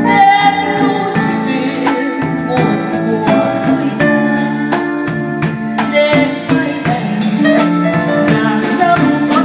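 A woman singing a Vietnamese song into a microphone over a live band: drum kit keeping a steady cymbal beat under electric guitar and sustained chords, her held notes wavering with vibrato.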